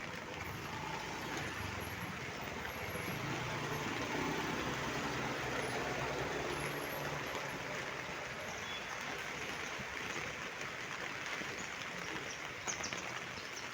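Heavy rain and wind making a steady rushing noise, with a low vehicle rumble that swells and fades in the middle. A few sharp ticks come near the end.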